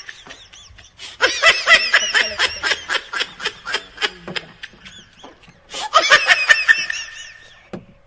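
A person laughing in quick repeated pulses: one long bout from about a second in, then a second burst about six seconds in.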